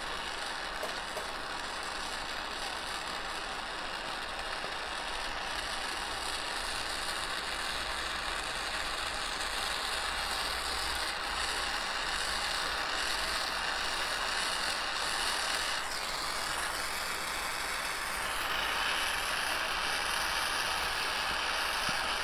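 Jeweller's gas torch running with a steady hiss while its flame heats a copper ring band to flow hard solder into the seam.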